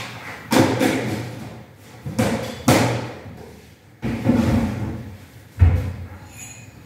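A series of knocks and thuds from things being handled and set down in a kitchen, about five in all, each dying away. The loudest is a heavy thud near the end.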